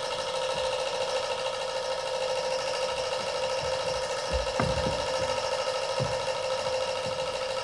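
Teochew opera accompaniment: one instrumental note held steady without a break, with a few low thuds about halfway through.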